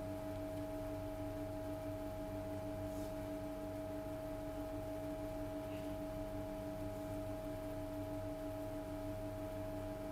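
Steady hum with two held tones, one low and one higher, unchanging throughout.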